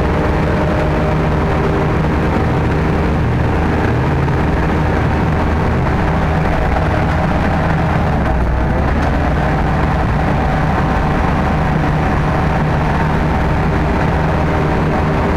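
Sherp ATV's Kubota four-cylinder diesel engine running steadily under load as it drives through mud and water, heard from inside the cab.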